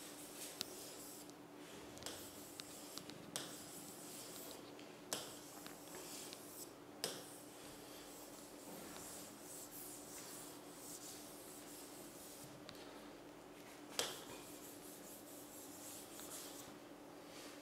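Writing on an interactive whiteboard screen: soft rubbing strokes with scattered sharp taps, the loudest about 14 seconds in, over a faint steady hum.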